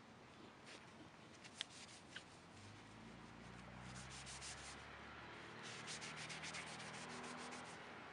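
Faint scratchy rubbing noise: two small clicks, then two flurries of rapid scratchy ticks, the second longer.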